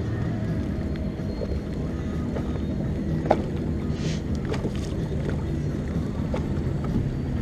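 Steady low rumble of wind and lake water around a small fishing boat, with a few light clicks and one sharper click about three seconds in.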